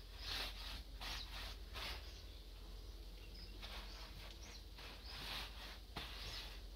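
Soft, rhythmic swishing as a gloved hand rubs wet blue wash onto a mud-plastered house wall, one stroke every half second to a second.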